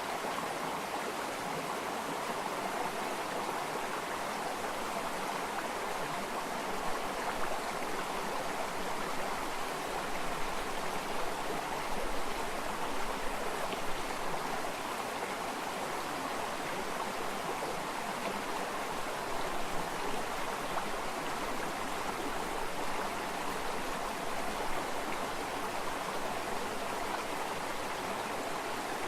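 Water running and burbling steadily in a stream.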